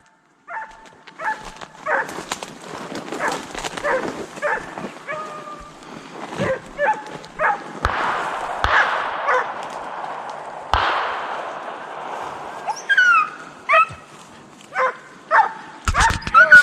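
Deer-hunting hounds barking and baying on a trail in short, repeated barks, with a few louder, higher yelps near the end.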